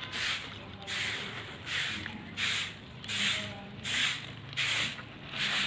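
Paper packet of cement colour powder shaken out over a heap of cement: a rhythmic rustling hiss, one swish about every 0.7 s.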